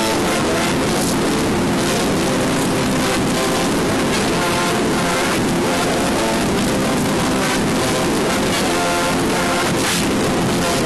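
CB radio transmissions played backwards: reversed, garbled voices buried in constant loud radio static.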